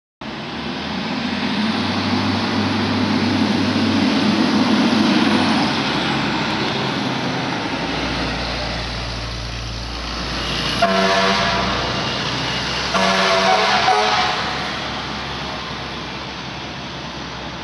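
A fire truck's engine rumbles as it drives past. Its air horn then sounds two steady blasts, each a little over a second long, about a second apart.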